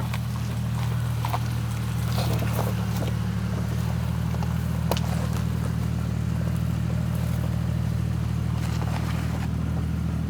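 Toyota All-Trac's engine running steadily under load, heard from inside the cabin, with a few sharp clacks and knocks from the chassis on rough ground. The driver's side is clacking badly.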